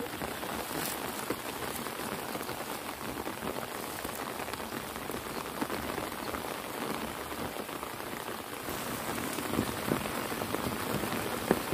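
Steady heavy rain falling: a dense, even hiss of drops dotted with many small ticks.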